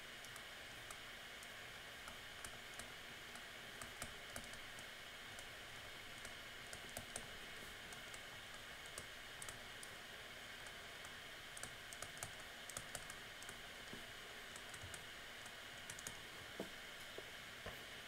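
Faint, irregular clicks and taps of a pen stylus on a tablet screen during handwriting, over a steady background hiss.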